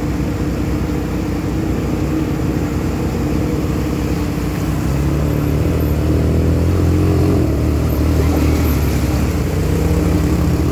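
ATV (quad bike) engines running as the machines ride through a shallow river. One gets louder and deeper from about halfway through as it passes close by.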